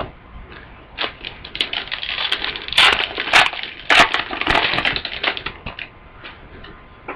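Foil trading-card pack wrapper crinkling and tearing as it is opened by hand, a dense run of crackles from about a second in that fades out near the end.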